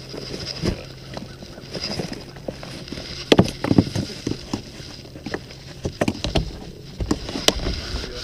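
Handling gear in a boat's storage locker: rustling of a bag and irregular clicks and knocks as items shift, the loudest knocks a little past a third of the way in and again near the end.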